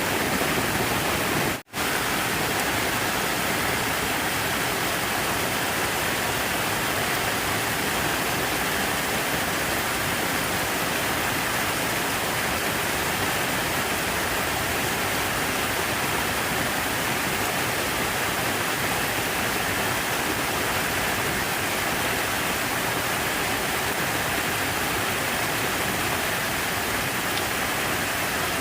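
Steady rush of falling water, as from a fountain or artificial waterfall, with a split-second drop-out in the sound about one and a half seconds in.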